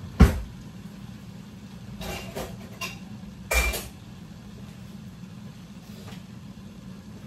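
Cookware and utensils clattering. A sharp knock just after the start is the loudest sound, followed by a few clinks about two seconds in and a ringing knock a little later, over a steady low hum.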